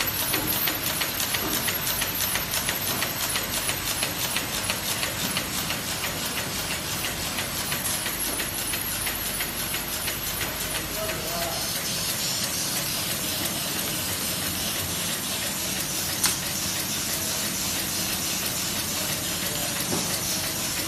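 Paper-box folding-gluing machine running at speed, a steady mechanical din with a rapid, even clatter as paper bottom holders are carried through on its belts. A single sharp click sounds about sixteen seconds in.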